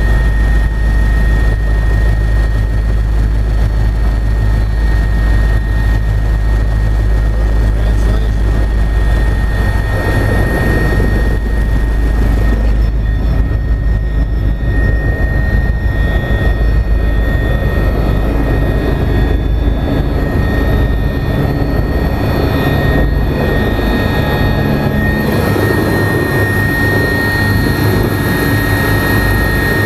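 Agusta A109S Grand helicopter heard from inside the cabin, its twin turboshaft engines and rotors running with a loud low drone and a steady high whine. The low drone turns rougher and more uneven about ten seconds in.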